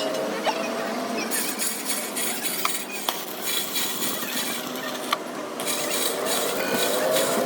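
Metal parts and tools clinking and scraping, with scattered sharp clicks over steady background noise.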